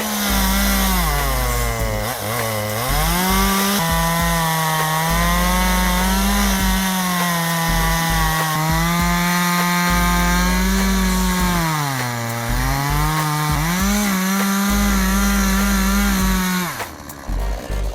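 Two-stroke chainsaw running at high revs as it cuts through wood. Its pitch sags twice as the engine is loaded in the cut, around two and twelve seconds in, and recovers each time. It cuts off about a second before the end.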